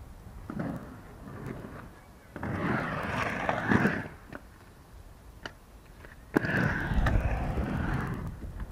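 Inline skate wheels rolling over a concrete skatepark bowl in three surges as the skater carves its walls, with a few sharp clacks; the loudest surge begins with a knock near the end.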